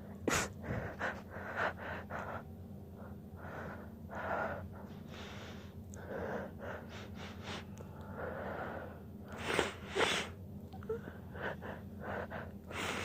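A woman's held-back, stifled sneezes among gasping, wheezy breaths: a run of short breathy bursts, with two sharper ones close together about ten seconds in.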